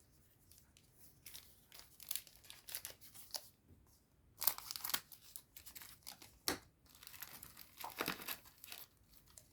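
A Digimon Card Game booster pack wrapper is torn open and crinkled, in a run of irregular rips and rustles. The loudest tear comes about halfway through.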